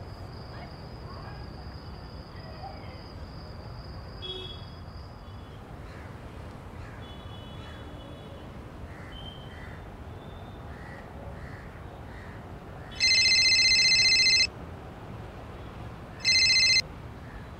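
Mobile phone ringtone: a loud electronic ring of about a second and a half, then a shorter ring a couple of seconds later. Under it, a steady outdoor ambience with faint bird calls.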